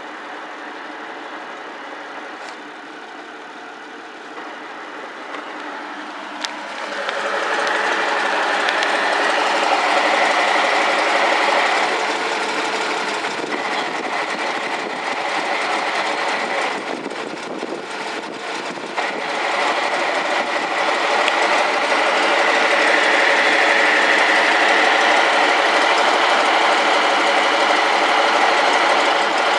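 1967 Nissan Gloria's drivetrain running at a steady idle with an abnormal rattling whir from the transmission, quieter at first and becoming much louder about seven seconds in, with a brief dip near the middle. The noise stops when the clutch is pressed with the gearbox in neutral, which the owner takes for play in the transmission's input shaft bearing.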